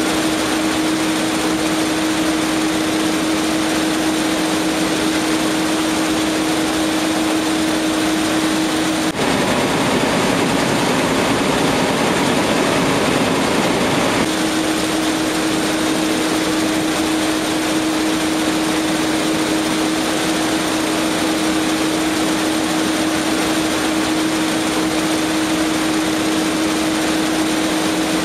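Jakob Müller woven-label looms running at full speed: a loud, dense, steady mechanical clatter over a steady hum. The hum drops out for a few seconds near the middle, then returns.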